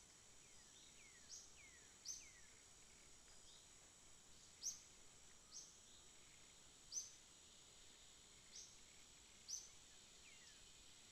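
Faint forest ambience: a steady high insect drone with short, sharp high-pitched calls repeating every second or two, and a few falling whistled notes.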